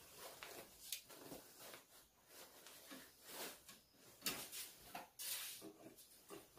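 Faint, irregular rustling and swishing of cloth as a kurti and its sheer net sleeve are turned right side out and handled, with the strongest swishes a little after four seconds and again around five seconds.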